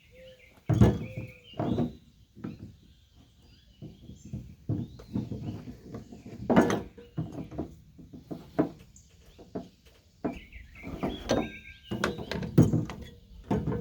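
Irregular knocks and clunks from a pair of shears being worked on to bring their blades together, with hens clucking in the background.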